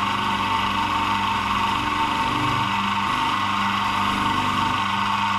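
Bench polishing motor running steadily under load, a constant hum with a whine above it, as a metal filler neck is abraded on a fine Scotch-Brite wheel to take off the surface grime.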